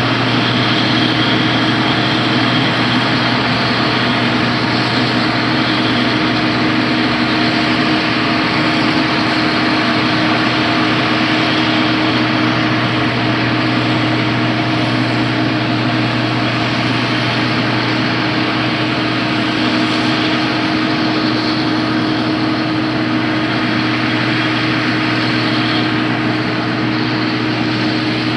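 A large engine running steadily at constant speed, with a deep, even hum and no change in pitch or level.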